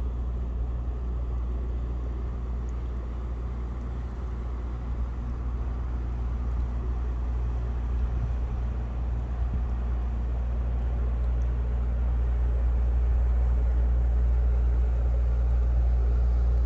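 Boat engine running out on the lake: a steady low drone that slowly grows louder as the boat comes by.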